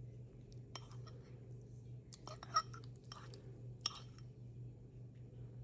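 A person chewing a mouthful of creamy chicken spaghetti, with a few short wet mouth clicks and smacks, the sharpest about halfway through. A low steady hum runs underneath.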